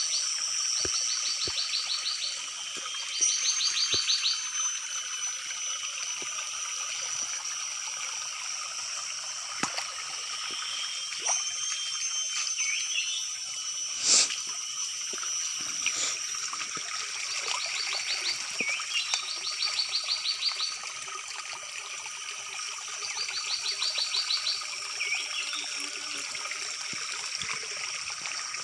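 Shallow forest stream trickling under a steady, high-pitched chorus of wildlife calls. Short, rapid trills repeat in groups near the start and again in the second half, with a few brief descending chirps. There is one sharp click about eleven seconds in.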